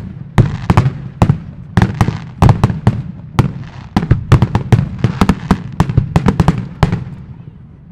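Fireworks display: a rapid, dense barrage of sharp bangs with crackling between them, thinning out over the last second.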